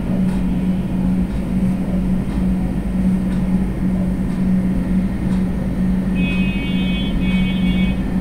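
A steady low hum with a low rumble, under faint scrapes and taps of a silicone spatula stirring simmering beef liver curry in a kadai. About six seconds in, a high warbling tone sounds for about two seconds.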